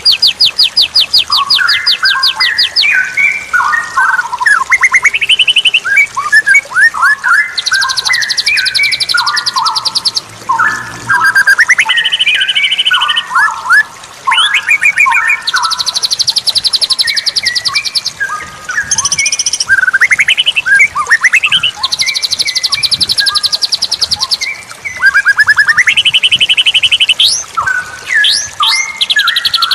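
A straw-headed bulbul (cucak rawa) singing loudly and without a break, in varied, gliding phrases, with bursts of rapid high trills between them.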